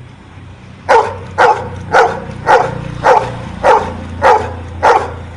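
Trained dog barking eight times in an even run, about two barks a second, starting about a second in: it is counting out the number ten called to it, bark by bark.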